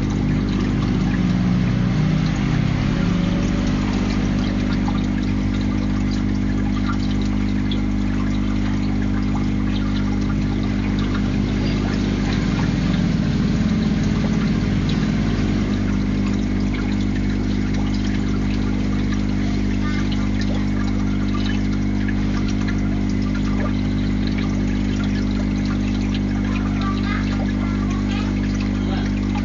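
Steady hum of an aquarium's pump or filter running, with water trickling and splashing at the tank surface.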